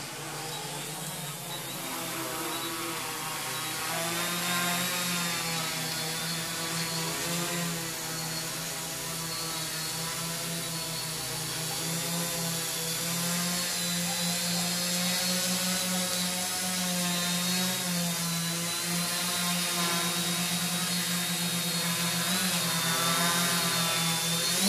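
Large multirotor drone flying low and hovering, its electric motors and propellers giving a steady buzzing hum whose pitch wavers slightly and grows louder as it comes close.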